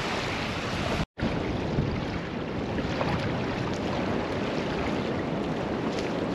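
Steady wind blowing across the microphone, with the wash of small waves at the water's edge underneath. The sound drops out completely for an instant about a second in.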